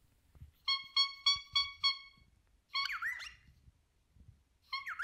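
A cockatiel honking: a quick run of short honks, about four a second, then two shorter squawking calls that slide in pitch, about three seconds in and near the end.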